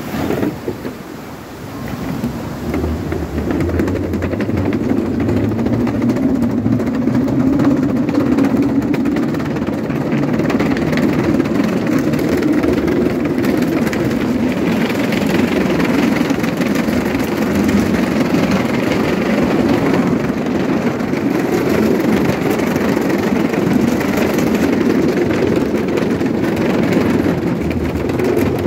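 Skateboard wheels rolling over a plank boardwalk, a steady loud rumble that swells about two seconds in as the board picks up speed.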